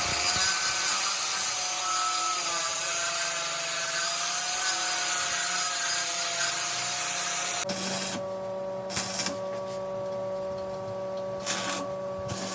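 Electric welding arc hissing and crackling steadily for about eight seconds, then cutting off suddenly. After it stops, a quieter steady hum remains with a few light clicks.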